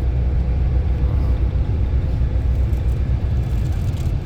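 Steady low rumble of engine and road noise inside a moving vehicle.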